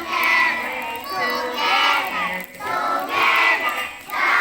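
A group of children singing together in loud phrases, with short breaks about halfway through and near the end.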